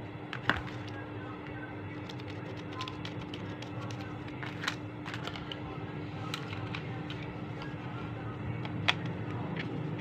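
Scattered sharp plastic clicks and taps from a Targus numeric keypad being handled: keys pressed and its plastic top frame lifted off, over a steady hum.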